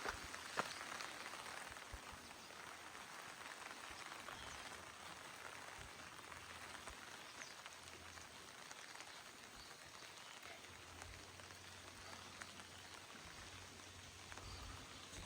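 Faint steady rain falling, with scattered sharp drop ticks; the loudest tick comes about half a second in.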